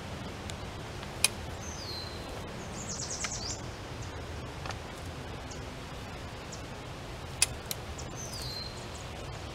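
High-lift farm jack clacking as its handle is pumped to pull a fence post: two sharp metal clacks about six seconds apart, with a few fainter clicks between. Birds call over it with two short falling chirps and a brief rapid trill.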